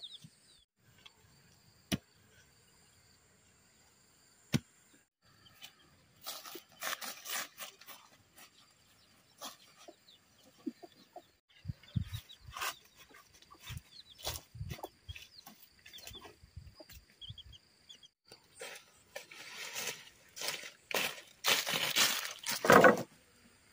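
Two sharp knocks, then rustling and crunching of dry brush and wooden poles being handled and carried, loudest near the end, over a steady high-pitched hum.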